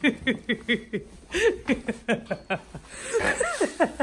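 Laughter: several quick runs of short ha-ha sounds with brief pauses between them.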